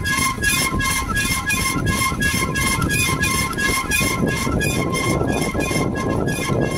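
A bicycle squeaking rhythmically as it is ridden, short high squeaks repeating about three times a second over a low rumble of riding noise.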